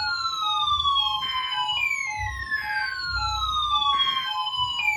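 Several NOAA weather radios sounding their alert alarms for the Required Weekly Test. A siren-like tone sweeps down in pitch and repeats about every three seconds, over a steady pattern of short beeps about twice a second.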